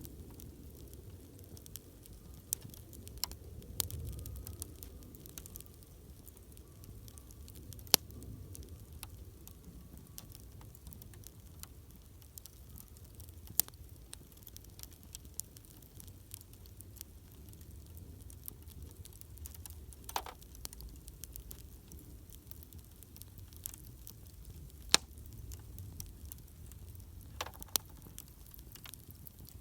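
Wood campfire burning: a low steady rumble with irregular sharp crackles and pops from the burning wood, the loudest about 8 seconds in and again near 25 seconds.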